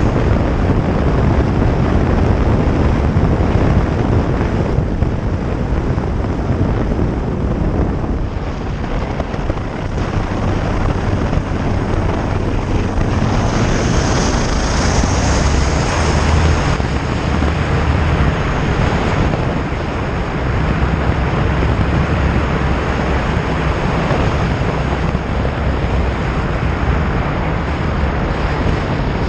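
Honda Varadero V-twin motorcycle riding steadily along a gravel road: the engine runs at an even pace under the rush of wind over the microphone and the tyres on gravel.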